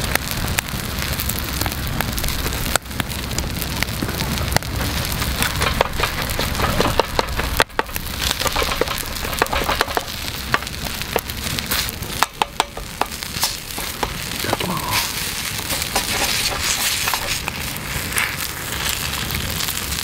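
Monjayaki frying on a steel griddle over a wood fire: a steady sizzle with the fire crackling under it. Metal spatulas chop and scrape on the griddle, giving clusters of sharp clicks a few seconds in and again near the middle.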